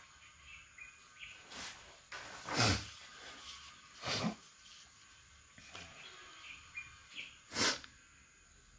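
Sheets of paper being handled, about five short rustling swishes as a fresh sheet is laid down and smoothed flat, with faint bird chirps in the background.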